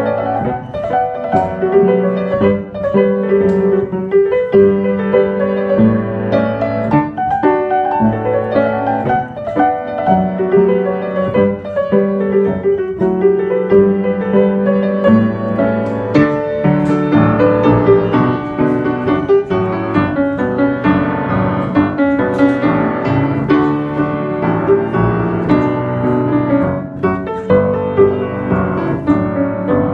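Renovated Steinway & Sons upright piano being played: a continuous passage with several notes sounding together and new notes struck in steady succession. It is tuned to A = 443 Hz and has new Abel hammers, only initially voiced.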